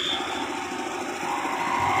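SANY hydraulic excavator's diesel engine running under load, with a hydraulic whine that rises about a second and a half in as the arm lifts and curls the hanging vibratory pile hammer.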